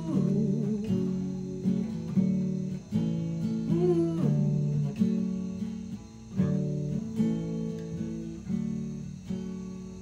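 Acoustic guitar played alone: strummed chords with a few sliding notes, growing gradually quieter over the last few seconds.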